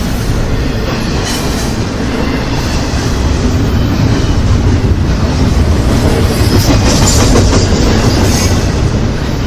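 Intermodal freight train cars rolling past: a loud, steady rumble of steel wheels on rail.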